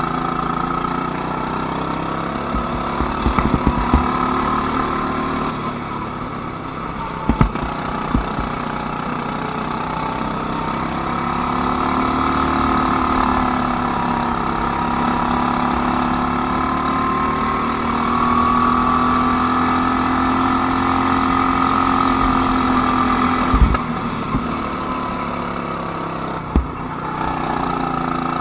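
Go-kart engine running under way, its pitch slowly rising and falling with the throttle, with a few short knocks mixed in.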